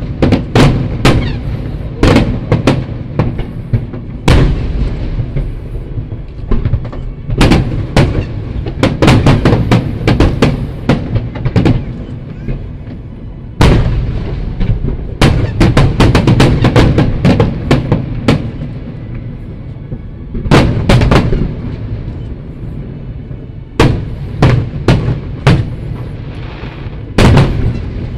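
Aerial fireworks shells bursting in rapid volleys of sharp bangs over a continuous low rumble, with the densest barrages in the middle of the stretch and a few single booms near the end.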